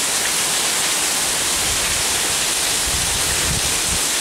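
Heavy tropical-storm rain pouring down in a steady hiss, with a brief low rumble near the end.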